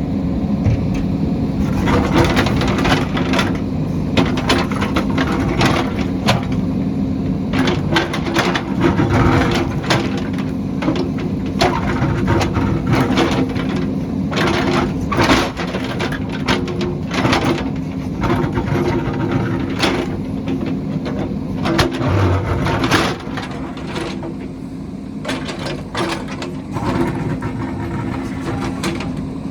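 JCB backhoe's diesel engine running steadily, with frequent sharp knocks and cracks from the bucket digging into the hillside. The knocks stop near the end, leaving the engine running on its own.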